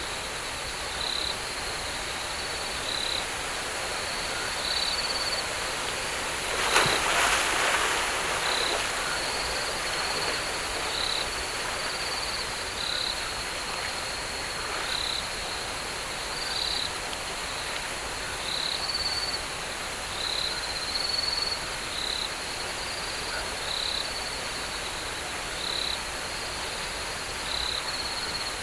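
Rainforest night ambience: a steady insect chorus with a short high chirp repeating every second or two. A single sharp crack about seven seconds in.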